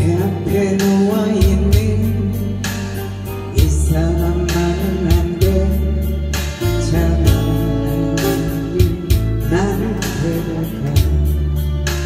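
A woman singing a Korean trot song live through a microphone, accompanied by acoustic guitar over bass and a steady beat.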